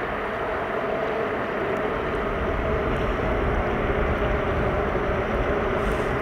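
Snowmobile engine running steadily, a held engine hum with a low rumble building beneath it in the second half.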